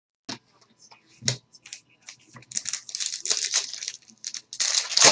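A trading card pack's foil wrapper being torn open and crinkled: a dense crackling rustle that builds over the second half and is loudest near the end. Before it come a few sharp clicks of cards being handled.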